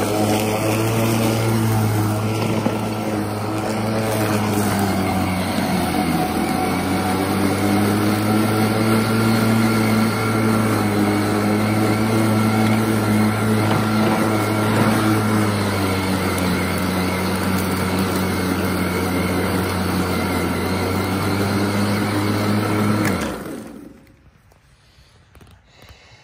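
EGO 21-inch cordless electric self-propelled lawn mower running while cutting grass: a steady electric motor and blade hum over a rush of cut grass. About 23 seconds in, the motor cuts off and winds down within about a second.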